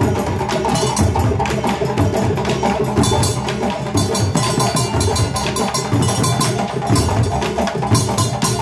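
West African drum ensemble of djembes and tall standing drums playing a fast, dense rhythm of sharp slaps and rapid strikes.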